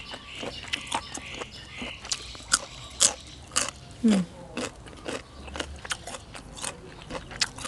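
Close-miked crunchy chewing of beef tripe salad and raw yardlong beans, with crisp crunches about twice a second.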